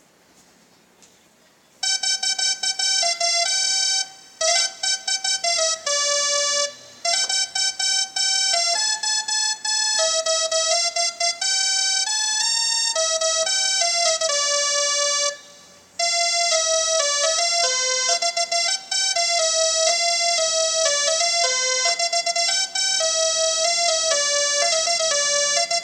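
Electronic musical bus horn playing a tune: a bright, buzzy melody of held and stepped notes, starting about two seconds in, with a few short pauses.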